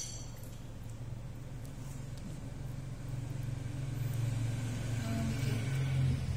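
A motor vehicle's engine running, a low steady hum that grows louder through the second half.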